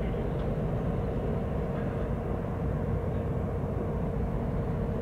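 Diesel freight locomotives running steadily while backing a train of refrigerated boxcars: a continuous low rumble with a constant hum.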